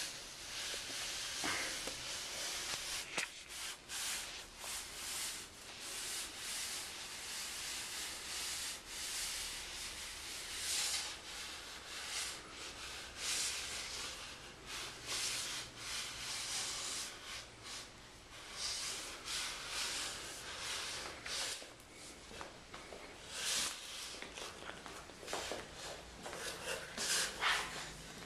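Empty cardboard box scraping and sliding across the floor in uneven pushes as a crawling baby shoves it along.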